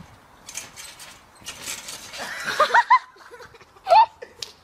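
A person's voice in short, high, rising laughing squeals, then a loud rising cry about four seconds in, with a few sharp clicks between.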